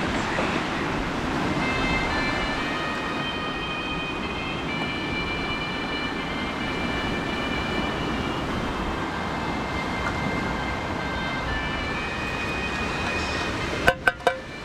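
A distant siren sounding steady tones that shift in pitch in steps, over a constant rushing background noise. Three sharp knocks near the end.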